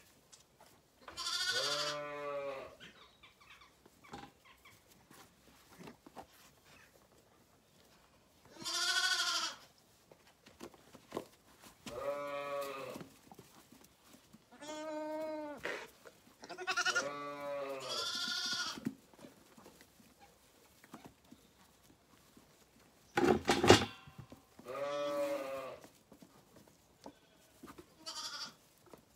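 Zwartbles lambs bleating, about eight quavering calls of around a second each, spaced a few seconds apart. About three quarters of the way through there is one short, loud, harsh burst.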